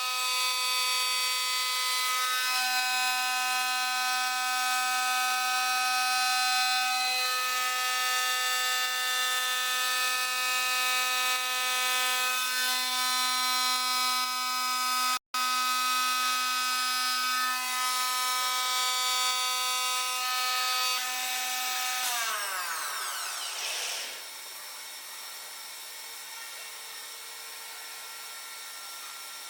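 CNC stone-working machine's spindle running with a steady high whine, its pitch stepping a few times, with a momentary break about halfway. Some 22 seconds in it winds down in a falling glide, leaving a quieter hum.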